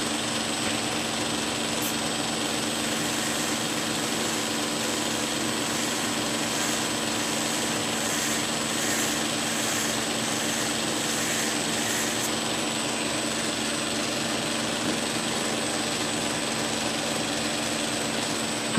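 Belt sander running steadily with a hum, a straight razor's steel blade held edge down against the sanding belt over the contact wheel for finish grinding. The grinding on the blade eases off about two-thirds of the way through while the belt keeps running.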